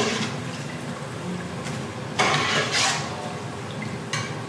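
Battered broccoli pieces deep-frying in hot oil in a stainless steel pot, a steady sizzle. About two seconds in there is a louder burst of sizzling and scraping as a metal spoon stirs through the oil and lifts pieces out.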